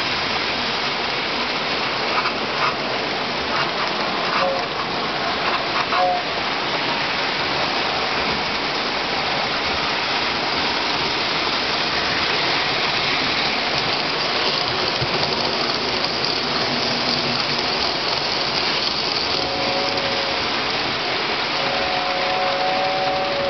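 Lionel three-rail O-gauge model trains running: a steady noise of metal wheels and motors on the track as a freight train passes. A two-note train whistle sounds briefly twice about five seconds in, and again, held longer, near the end.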